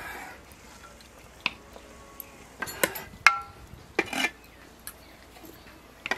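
Metal serving dishes and utensils clinking and knocking while food is dished up: scattered sharp clinks, a quick cluster near the middle, one of them ringing briefly.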